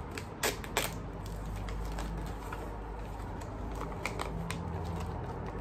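Paper rustling and crinkling as a small gold paper gift bag is handled and opened, with two sharp crackles about half a second in and light crinkles after.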